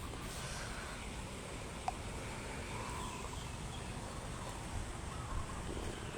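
Wind rumbling and buffeting on the microphone as a steady low noise, with a brief faint chirp about two seconds in.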